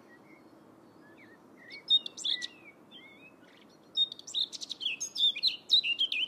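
Songbird singing: a few scattered short whistled notes, then from about four seconds in a fast, continuous twittering song.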